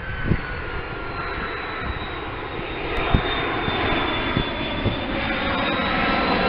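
Twin-engine widebody jet airliner on approach with landing gear down, passing low overhead: steady jet engine noise with high whining tones that slowly fall in pitch, growing louder near the end. A few brief thumps sound over it.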